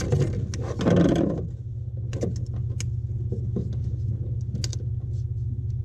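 Steady low hum from the running Flashforge Dreamer NX 3D printer, with light clicks and rustles as hands handle the touchscreen circuit board and its ribbon-cable connector. A louder rustle comes about a second in.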